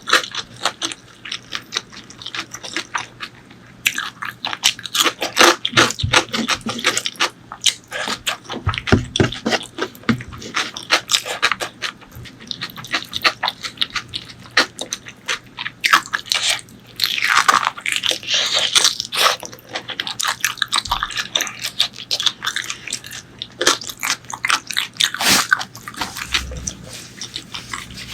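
Close-miked eating of spicy pork leg curry with rice: steady biting and chewing, with many quick crunches and clicks, and a longer noisy stretch of mouth sound about two-thirds of the way through.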